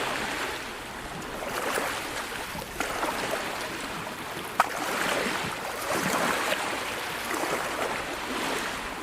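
Sea waves washing and breaking on a shore, a steady hiss of surf rising and falling in swells, with a single sharp click about halfway through.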